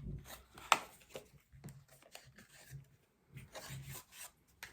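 Hands handling a cosmetic bronzer compact and its packaging: rubbing and rustling with scattered small clicks and taps, one sharper click about three-quarters of a second in.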